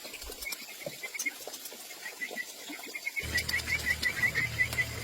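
A small animal chirping in quick repeated high notes, about six a second, getting stronger a little past halfway, when a low steady hum also starts.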